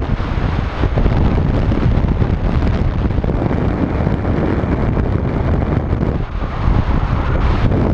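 Airflow buffeting the microphone of a camera carried by a paraglider pilot in flight: a loud, steady wind rush, strongest in the low end.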